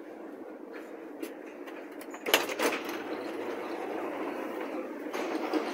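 Berlin U-Bahn HK-series train heard from inside while riding, a steady rumble. A loud clank about two seconds in is followed by rattling and louder running, with another clank near the end.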